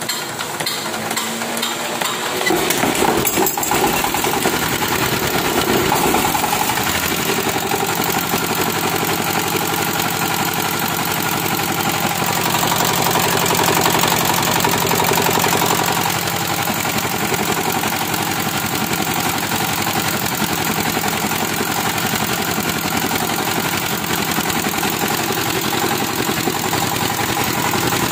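Fortuner ZS1100 single-cylinder direct-injection diesel engine (18 HP at 2200 rpm) being hand-cranked with regular knocks, catching a couple of seconds in, then running steadily. It runs a little louder for a few seconds near the middle before settling back.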